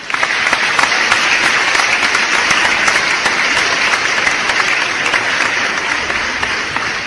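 Applause sound effect: a large crowd clapping, a dense crackle of many hands that sets in at once and begins to fade near the end.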